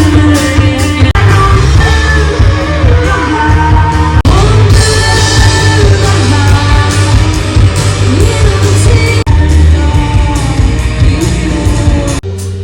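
Loud music with singing over a heavy bass line; it drops off suddenly near the end.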